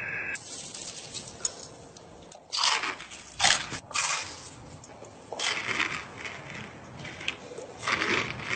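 Eating sounds: a run of irregular crunching bites and chewing, coming in uneven bursts with the loudest a few seconds in.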